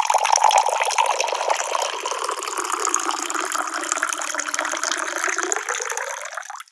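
Water pouring in a steady stream into a drinking glass, filling it, then stopping abruptly near the end.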